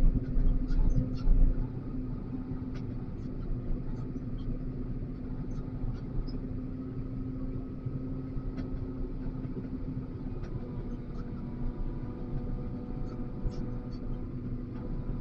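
XCMG LW500HV wheel loader's diesel engine running steadily, heard from the operator's cab. There are a few heavier low thumps in the first second and a half, and scattered light clicks.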